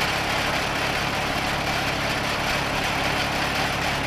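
An engine idling steadily: an even low hum under a wide hiss, with no changes.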